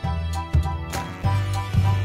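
Background music with a steady beat, a low bass line and a short repeating melody.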